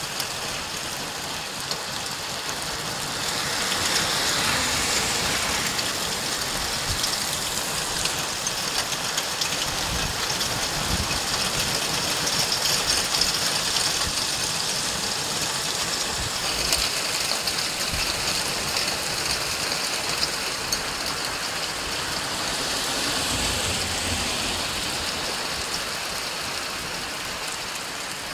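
Heavy rain pouring steadily, a dense hiss of countless drops with gusts of wind making it swell several times.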